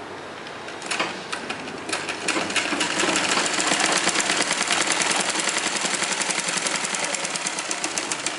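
Sewing machine stitching along a narrowly folded sleeve hem of a blouse. A few separate stitches about a second in, then a fast, even run of stitching from about two seconds.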